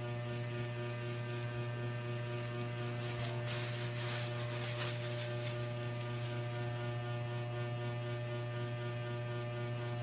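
Steady low electrical hum with many overtones, with a brief soft hiss near the middle.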